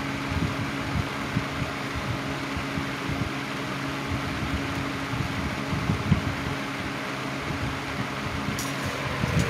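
1980s Patton rotary box fan running on low speed: a steady rush of air over a low electric-motor hum.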